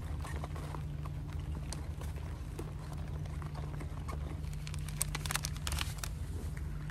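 Rustling and crinkling of a foil-lined freeze-dried meal pouch being pressed shut, then a burst of sharp crackles about five seconds in as a small sachet is torn open, over a steady low hum.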